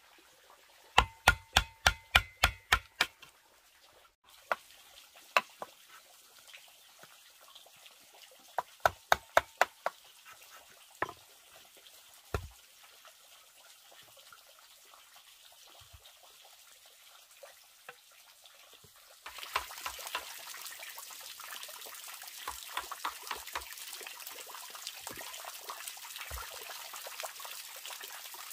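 Rapid knocks of a chisel being struck into a bamboo stalk, coming in quick runs of about four strikes a second with a short ringing, plus a few single knocks. About two-thirds through, a steady splashing trickle of water from a bamboo pipe falling into a pond takes over.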